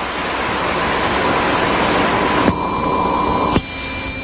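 Steady hiss of static-like noise with a faint steady tone in it. It changes abruptly with a click about two and a half seconds in and again about a second later, when the hiss drops away.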